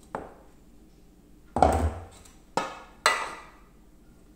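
Kitchenware being knocked and handled: four sharp clattering knocks of utensils, bowl and cake pans. The second, about a second and a half in, is the loudest and carries a dull thump.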